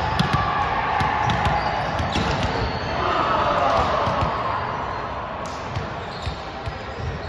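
Balls thumping and bouncing on a hardwood gym floor, a scatter of short knocks that echo in the large hall, over distant voices.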